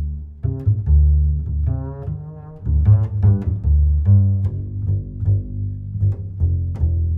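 Background music of low plucked and bowed strings, a quick run of notes over a steady bass line.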